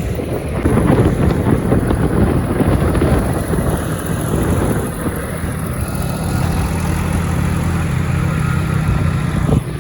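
Vehicle engine running steadily on the move, a low even drone.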